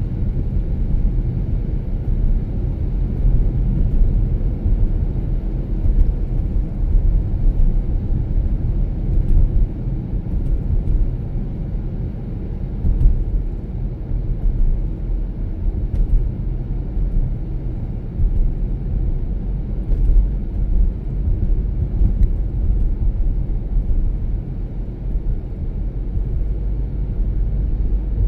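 Car driving on a snowy road: a steady low rumble of tyres and engine.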